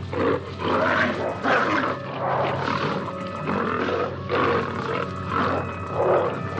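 Tiger snarling and roaring in a rapid series of rough bursts while mauling its prey, over a film score.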